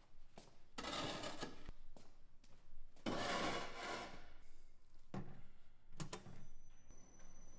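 Two long scraping strokes, each a second or more, followed by a few light knocks.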